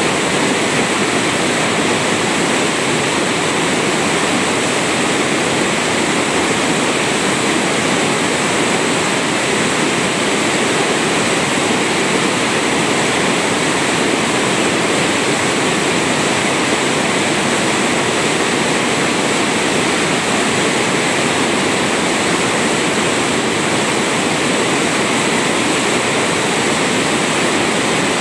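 A waterfall: water pouring and rushing in a steady, unbroken roar that does not change.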